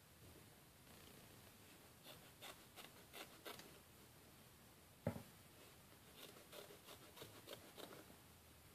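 Scissors making faint runs of short snips as they cut along a strip of felt, with one sharper knock about five seconds in.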